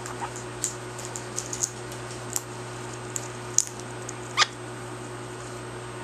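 Hawk-headed parrot giving one short squeak about four and a half seconds in, among scattered light clicks and taps, over a steady low hum.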